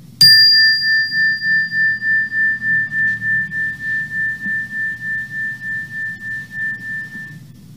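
Single-bar meditation chime, a metal tone bar on a wooden block, struck once with a mallet and left to ring: one clear high tone that pulses gently about three times a second as it fades away over about seven seconds. A faint low hum lies underneath.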